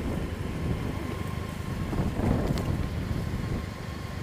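Suzuki Burgman scooter's engine running at low speed as it creeps forward, under a low rumble of wind on the microphone, swelling briefly about halfway through.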